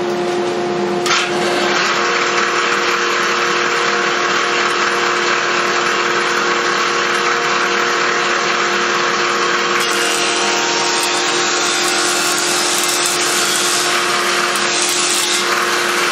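Jointer running steadily with its dust collection, a second machine tone joining about two seconds in. From about ten seconds in, a red oak board is fed edge-on across the cutterhead, and a rough cutting noise rises over the motor hum for about five seconds.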